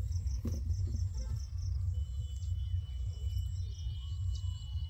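Insects chirping in a rapid, even pulse of about six chirps a second, with a steady high whine joining about two seconds in, over a constant low rumble.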